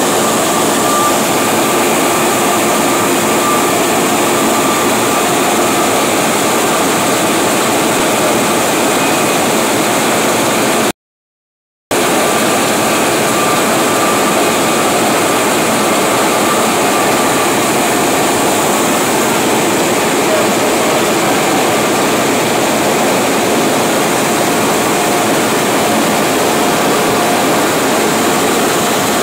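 Goss 4000 web offset printing press running at speed: a loud, steady, even machine noise with faint steady tones in it. The sound cuts out completely for about a second near the middle.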